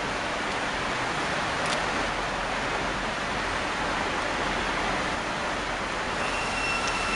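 Steady, even hiss of background noise with no distinct events. A faint, high, steady whine joins it about six seconds in.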